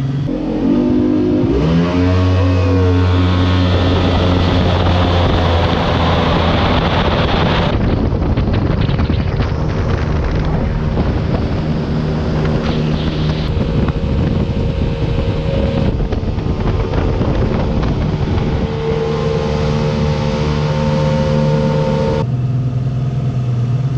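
Outboard motor on a bass boat throttling up, its pitch rising over the first few seconds, then running steadily at speed under heavy wind and water rush. The sound changes abruptly a few times.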